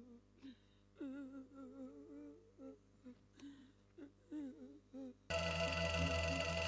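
A single voice softly humming short, wavering phrases of a sung melody. About five seconds in, much louder sustained instrumental music cuts in suddenly.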